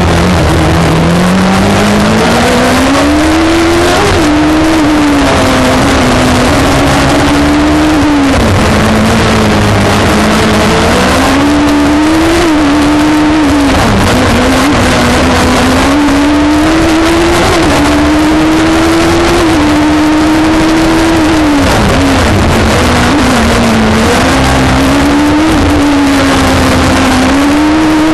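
OMS CF single-seater racing car's engine at full effort, heard onboard: the note climbs in pitch under acceleration and drops sharply at each gear change or lift for a corner, over and over through the run.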